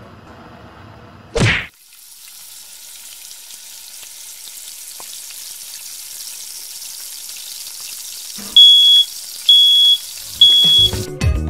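Frying in a hot pan: a short loud burst about a second and a half in, then a steady high sizzle. Near the end a smoke alarm beeps three times, about once a second, as the food burns, and music starts just after.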